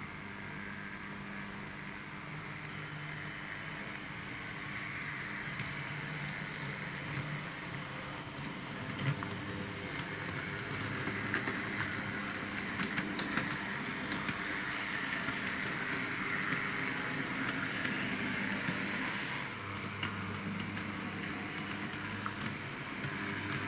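H0-scale model of a Bremen GT3 articulated tram running along its track: the steady whir of its small electric motor and drive, with wheels rolling on the rails and a few light clicks along the way.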